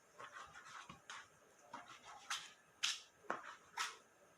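Knife cutting raw meat on a cutting board: faint, short taps and scrapes at irregular intervals.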